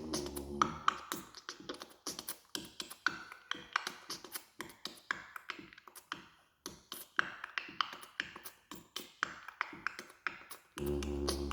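Mouth percussion imitating a drum kit: a fast, irregular run of sharp clicks and taps, with a low droning hum in the first half-second that comes back near the end.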